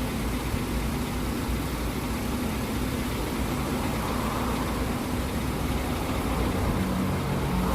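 Car engine idling steadily, with a constant low rumble and a steady hum over it.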